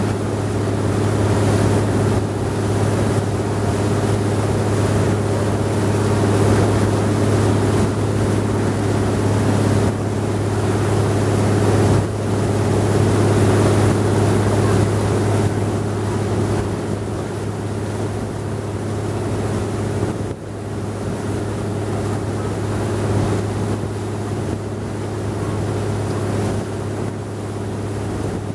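Wooden river boat's noisy engine running at a steady drone as the boat cruises, with wind noise on the microphone.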